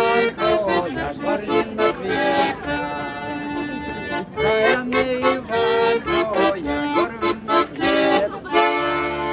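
Accordion playing a lively tune, with held chords under a stepping melody.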